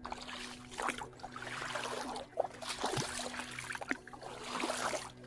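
Footsteps squelching and splashing through wet sand and shallow creek water, an irregular run of crunches and splashes over a trickle of water.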